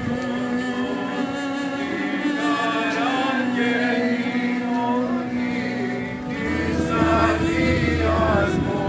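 Greek Orthodox Byzantine chant sung by a group of chanters: a moving melody over a held drone note (the ison), which steps up to a new pitch about six and a half seconds in.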